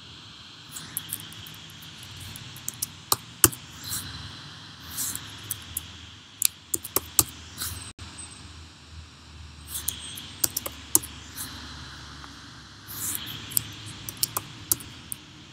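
Keystrokes and clicks on a computer keyboard, in several short irregular bursts with pauses between, over a steady faint hiss.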